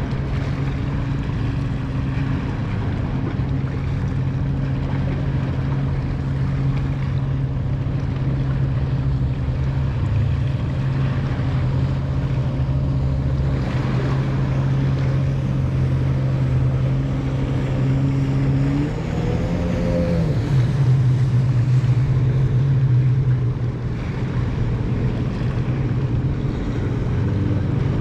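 A boat's motor running steadily, its pitch rising and falling briefly about two-thirds of the way through.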